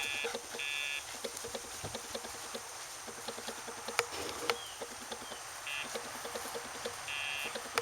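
Dogtra e-collar pager's sound box buzzing: short electronic beeps of a steady high tone, three or four times, each under half a second. Each buzz marks the collar paging the dog, given when the leash goes tight.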